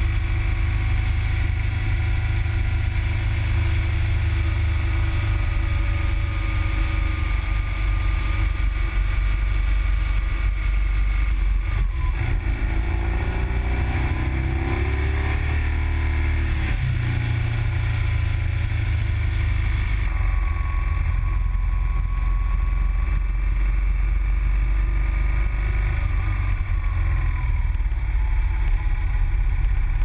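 Motorcycle engine running at road speed, rising in pitch through several upshifts as it accelerates about halfway through.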